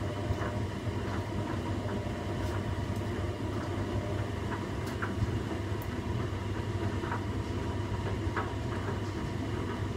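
Washing machine running a wash cycle: a steady low hum and rumble from the turning drum, with occasional light knocks and clicks from the load.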